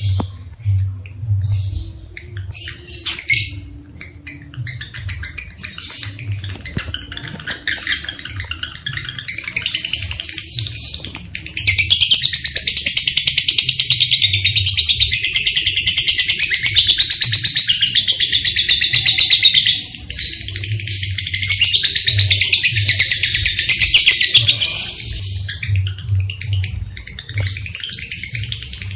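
Lovebirds chirping in scattered calls, then breaking into a loud unbroken high chattering trill, the long 'ngekek', that runs about eight seconds, pauses briefly and starts again before easing back to chirps near the end.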